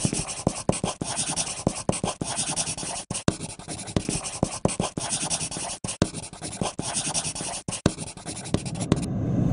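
Pencil scratching rapidly over paper in quick, dense sketching strokes, which stop just before the end.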